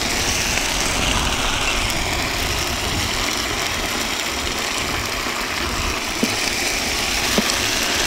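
Onion, tomato and green chili paste sizzling steadily in hot oil in a frying pan as its water cooks off.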